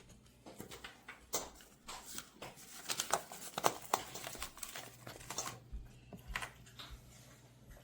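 Scattered light clicks, taps and rustles of things being handled, over a low steady hum that drops away about a second in and returns near five seconds.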